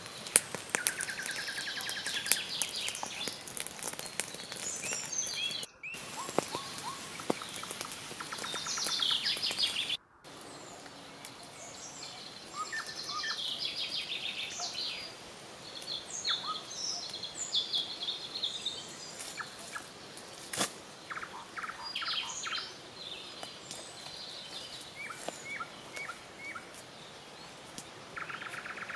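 Several forest songbirds singing, with quick chirps and fast trills overlapping; a few light clicks come through, and the sound drops out for a moment twice, about six and ten seconds in.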